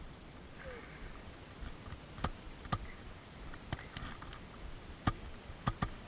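A string of sharp, irregular knocks and clacks, about eight in all, starting a couple of seconds in, over a faint hush: gear knocking on a small fishing boat.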